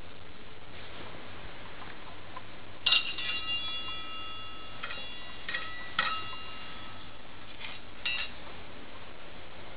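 Stainless steel bowl ringing as a metal spoon knocks against it, three times, about three, six and eight seconds in. Each knock leaves a clear metallic ring of several tones that dies away over a second or two.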